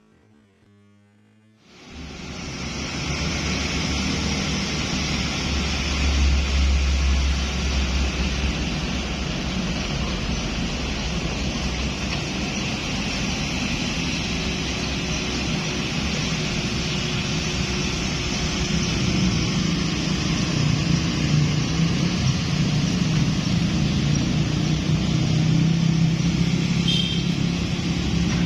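Kubota excavator's diesel engine running steadily while it digs, with a low rumble under a broad mechanical hiss. It fades in after about two seconds of near silence.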